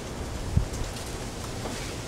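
Wind buffeting an outdoor camera microphone: a steady rushing noise with a fluctuating low rumble, and one short low thump about half a second in.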